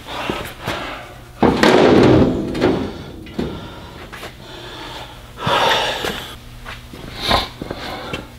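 A heavy truck starter motor being carried and set down on an aluminium fuel tank: irregular knocks, clunks and scrapes, with two louder noisy bursts about one and a half and five and a half seconds in.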